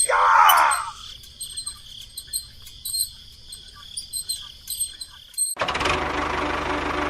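Insects chirring steadily in the background, with a loud, short, noisy call in the first second. About five and a half seconds in, the sound switches suddenly to the steady whirring of a small electric motor.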